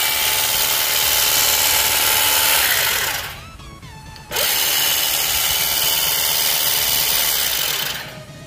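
Makita DUM604 cordless grass shear running with no load, its motor and reciprocating cutter blade making a loud steady buzz. It winds down about three seconds in, starts again abruptly a second later, and stops near the end.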